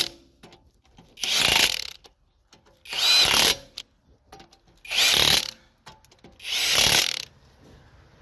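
Cordless impact wrench working lug nuts on a car wheel: four short bursts of whirring and hammering, about one every two seconds, with quiet in between.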